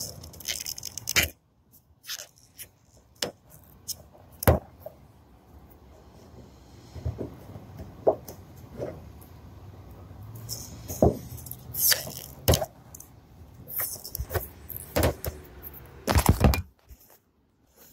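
Fingernail picking and scraping at a peeling black plastic stripe on a car hood, with irregular clicks, crackles and short scrapes as small flakes of the plastic come away.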